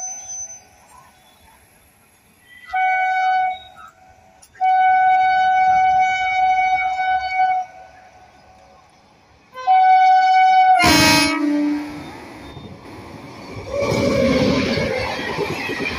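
Indian Railways electric locomotive sounding its horn as it approaches: four blasts, the third long, about three seconds. A sharp crack comes about eleven seconds in, followed by the running noise of the locomotive and coaches passing, which grows louder near the end.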